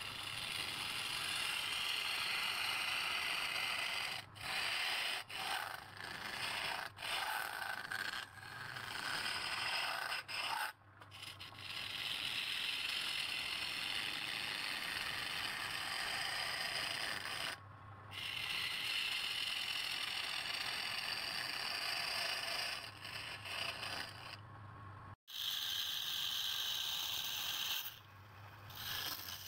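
Wood being cut on a lathe: a steady hissing scrape of the tool against the spinning wood, broken off by short gaps several times.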